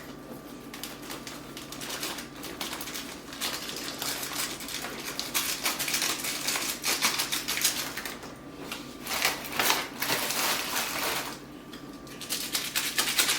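Crinkly plastic snack packaging rustling and crackling in irregular bursts as packets are opened and handled, with quieter stretches in between.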